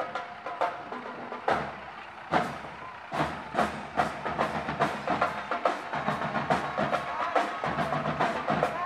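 Marching drum corps playing a steady percussion beat of sharp drum strikes, growing denser and louder about three seconds in.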